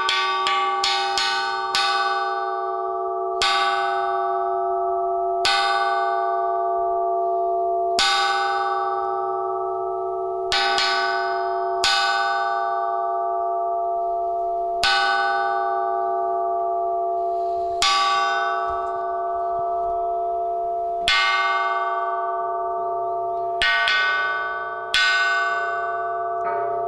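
A bell-like metal percussion instrument struck over and over, each strike ringing on into the next. A quick run of strikes opens, then the strikes come about every two to three seconds.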